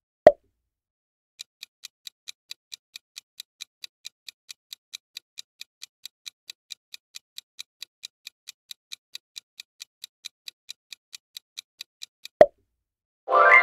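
Quiz countdown-timer sound effect: rapid clock ticks, about five a second, running for roughly ten seconds. A short pop comes just before the ticking and another as it stops. A bright chime starts right at the end.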